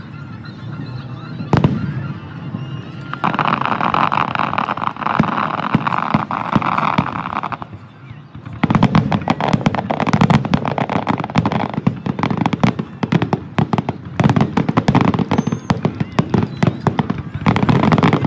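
Aerial fireworks display. A single shell bursts with a sharp bang, then comes a few seconds of steady crackling hiss. From about halfway on, a rapid barrage of many bangs and crackles follows close together.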